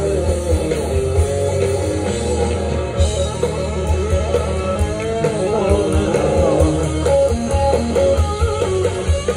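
Live rock band playing electric guitars and bass guitar over a drum kit, loud and steady, heard through a stage PA from within the crowd.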